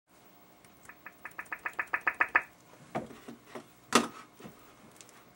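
Title-transition sound effects: a run of sharp ticks, about seven a second and growing louder, then several separate hits, the loudest about four seconds in.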